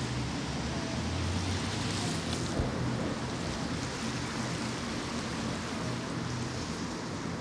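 Steady wind noise on the microphone over a low rumble of road traffic, with one brief knock about two and a half seconds in.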